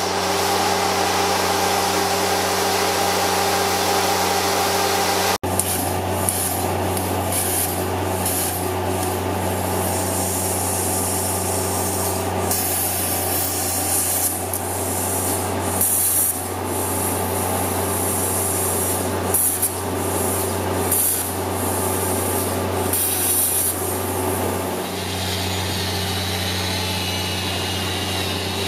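Plasma cutter cutting along the welds of rusted steel hull plate: the arc and air hiss, in bursts that start and stop as the torch moves, over a steady low hum. The sound drops out for an instant about five seconds in.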